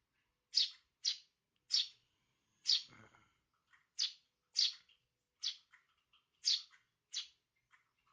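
Young Eurasian tree sparrows giving short, sharp chirps, repeated every half second to a second.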